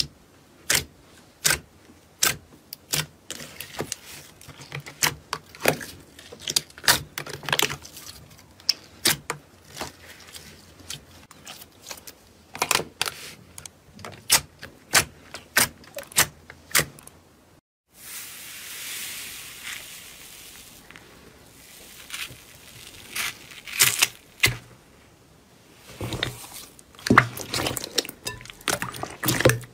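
Hands pressing and squishing slime, giving a quick run of sharp pops and clicks as trapped air bursts, with a short break just past halfway and denser squelching near the end.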